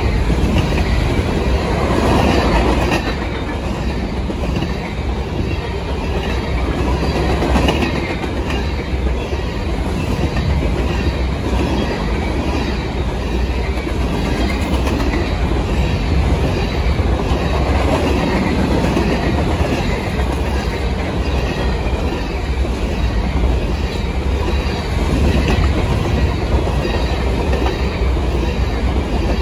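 Empty covered hopper cars of a freight train rolling past close by: a steady rumble of steel wheels on rail with a repeating clickety-clack as the wheels pass.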